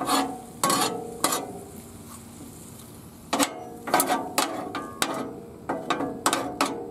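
Stainless steel spatulas scraping and clacking on the steel top of a Blackstone griddle while tossing sliced steak, onions, peppers and mushrooms: three strokes, a short pause, then a quick run of strokes.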